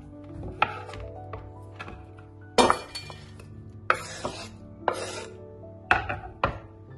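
Kitchen knife on a bamboo cutting board dicing tomatoes: sharp knocks of the blade on the wood, and a few short scrapes as the blade pushes the diced tomato across the board. Background music with sustained notes plays under it.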